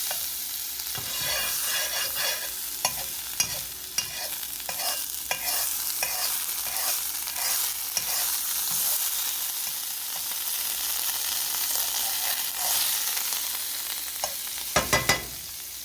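Sizzling in a hot frying pan, a steady hiss, with a utensil clicking and scraping against the pan now and then, and three quick knocks near the end.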